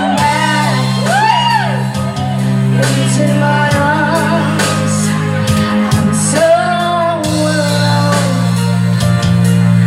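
Rock band playing a power ballad, with a singer's high, sliding vocal notes over held bass and guitar chords.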